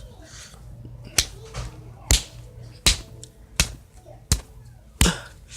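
Play-Doh being slapped flat by hand into a burger patty: six sharp slaps, evenly spaced about three-quarters of a second apart, starting about a second in.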